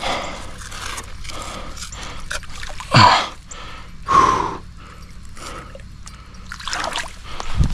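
Water sloshing and trickling as a flathead catfish is held in shallow pond water by a gloved hand and then released. Two loud short gasps or breathy exclamations come about three and four seconds in.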